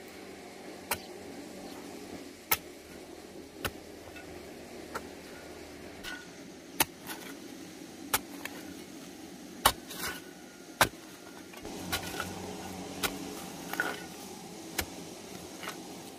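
A dozen or so short, sharp knocks at irregular intervals, about one a second, over a steady low background hum.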